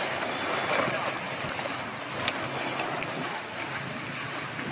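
Steady wind and water noise as a sailing boat slides close past, with one short knock about two seconds in.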